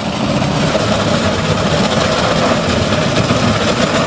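Hydrodemolition robot blasting unsound concrete off a bridge deck with 10,000 psi water jets: a loud, steady din of the little jets hitting the concrete, with heavy machinery running beneath it.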